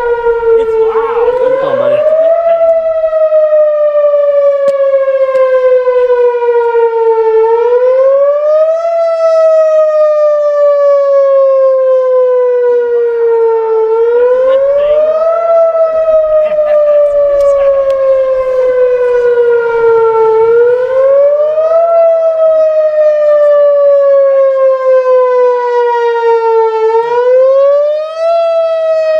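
Outdoor tornado warning siren sounding a loud, repeating wail during a scheduled test: the pitch rises quickly, then slides slowly down, over and over about every six and a half seconds.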